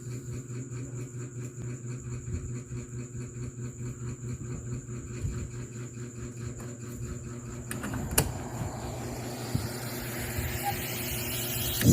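A JBL Go 3 Bluetooth speaker playing quietly between songs: a steady hum with a faint pulsing beat, then a swell that rises in pitch and grows louder over the last few seconds, leading into the next track.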